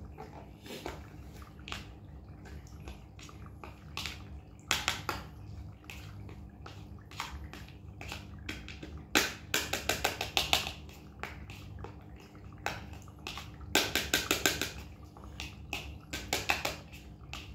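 White long-haired cat eating wet food from a bowl: short runs of quick, wet smacking clicks, several times.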